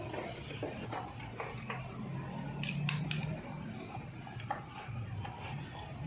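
Metal tools and parts clinking and knocking against each other while the old motorcycle is worked on by hand: scattered light clicks, with a quick run of sharper ringing clinks about three seconds in, over a low steady hum.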